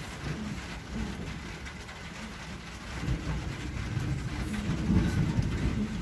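Irregular wooden thudding and knocking from a wooden pestle in a heavy wooden mortar, mixed with a knife chopping on a wooden block, getting louder after about three seconds.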